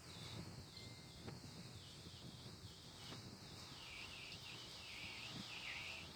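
Faint, steady high-pitched insect chorus, crickets or similar, over a low background rumble, with a few light ticks.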